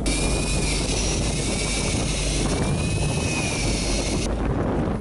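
A high motor whine, its pitch wavering slowly up and down, starts abruptly and cuts off after about four seconds, typical of an electric fishing reel winding in line. It sits over the steady low rumble of the boat and wind.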